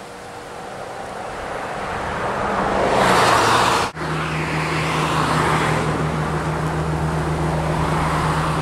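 Road traffic: vehicle noise swells steadily for about three seconds, breaks off in a brief dropout, then goes on as a steady low engine hum.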